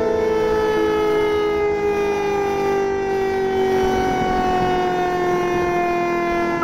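Rooftop electric civil-defence sirens sounding one steady, continuous tone, several pitches at once, all sliding slowly downward. This is the W-Hour alarm commemorating the Warsaw Uprising.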